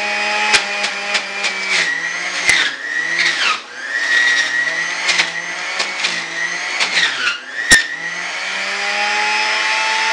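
Electric juicer running as vegetables are pushed down its feed chute: the motor hum drops in pitch under the load, with crunching cracks and squeaks as the produce is shredded. Near the end the motor speeds back up as the pushing stops.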